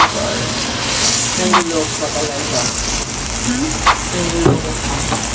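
Oil sizzling in a hot wok with stir-fried shrimp and Chinese broccoli. Fresh oil is being poured into the cleared side of the pan. A few short clicks sound over the steady sizzle.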